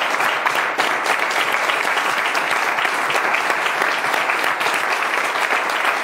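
Audience applauding steadily: many overlapping hand claps from a seated crowd.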